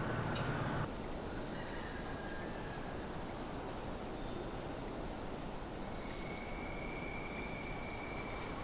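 Steady outdoor background hush with faint, high-pitched chirps and ticks. A low hum cuts off abruptly about a second in, and a thin, steady high tone is held through the last few seconds.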